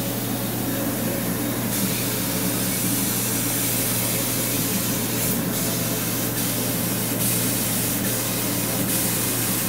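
Laser cutter running a cut with its air-assist compressor blowing through the nozzle: a steady hiss over a low hum. The hiss grows brighter about two seconds in.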